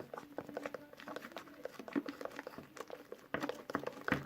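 Homemade slime mixture being stirred, a quick irregular string of small wet squishes and clicks; the mixture is still runny and has not set.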